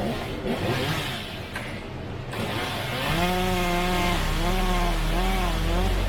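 Chainsaw revving up about halfway through, then running at high speed with its pitch wavering up and down as it cuts.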